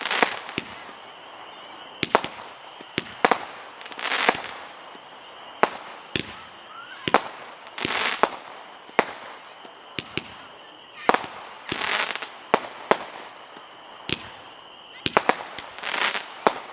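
8-shot Roman candles firing shot after shot: sharp pops as each ball launches, mixed with longer bursts of crackle. The shots come irregularly, about one every second.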